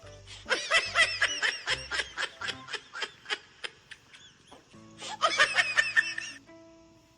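A person laughing in two bouts: a run of short, high-pitched laughs that slows and fades over about four seconds, then a second burst about five seconds in, over background music.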